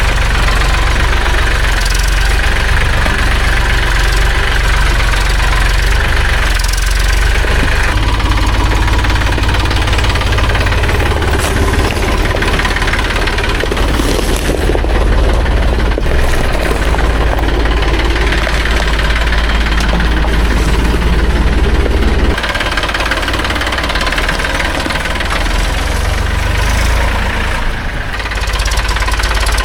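Farm tractor's diesel engine running steadily with a deep low rumble, which eases suddenly a little over two-thirds of the way through.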